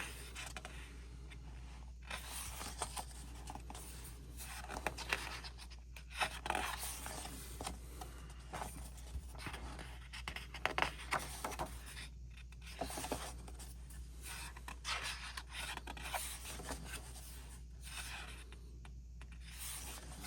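Paper pages of a K-pop album photo book being turned and handled: intermittent short swishes and rubs, over a steady low hum.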